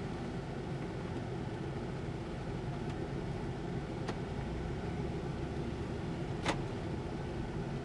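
Ford F-250's 5.4-liter V8 running steadily, heard from inside the cab, with one sharp click about six and a half seconds in.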